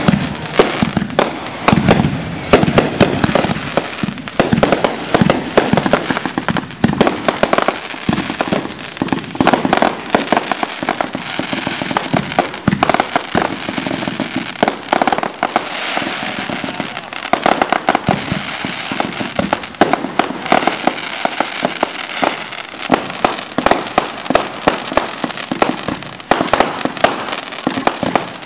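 Consumer fireworks finale: firework cakes and reloadable aerial shells launching and bursting in rapid succession, a dense barrage of overlapping bangs and crackle without a break.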